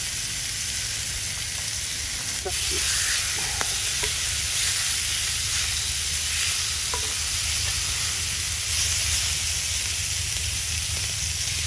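Ribeye steaks sizzling steadily on a grill grate over an open wood fire as they sear, with a few small pops.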